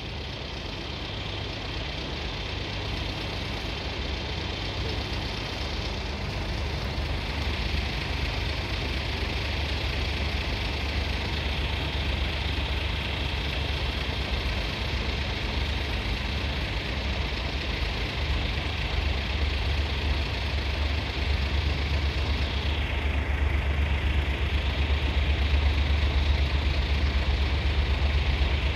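Steady low diesel engine hum from a lorry idling at the crossing barrier and an approaching train, growing gradually louder as the train draws near.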